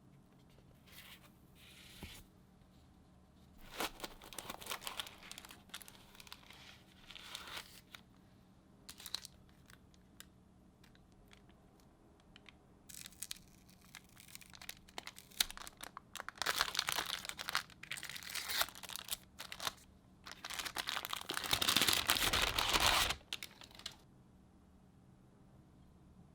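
Packaging being unwrapped and torn open: irregular bursts of crinkling and tearing, the loudest and longest near the end.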